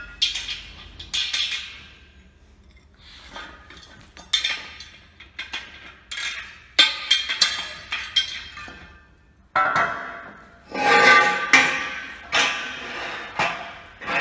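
Steel sawmill track sections clanking and ringing as they are handled and set down on the floor: a string of irregular metallic knocks, the loudest cluster about ten to twelve seconds in.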